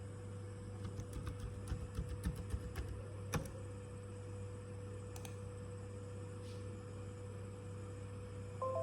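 A quick run of clicks and taps on a laptop's keys over about two seconds, the last one the loudest, over a steady electrical hum. A short pitched tone starts just before the end.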